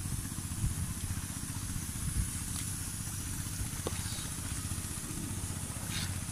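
A motor running steadily: an even low hum under a constant hiss, with a few faint ticks.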